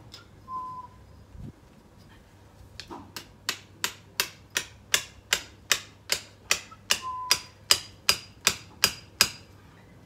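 A hammer striking a metal garden support, driving it into the ground: a steady run of about eighteen quick blows, roughly two and a half a second, growing louder, starting about three seconds in.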